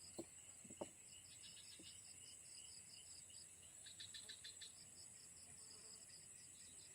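Faint insects: a continuous high-pitched buzz under a regular chirping about three times a second, with a short rapid clicking run about four seconds in. Two brief low sounds come within the first second.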